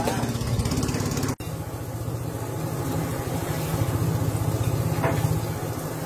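A motor running steadily with a fast low throb, with a very short break about a second and a half in.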